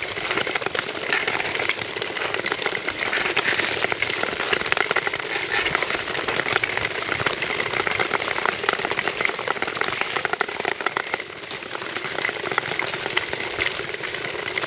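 Nordic tour skates of several skaters scraping and hissing over smooth lake ice, with a dense run of small ticks from pole tips and blades striking the ice.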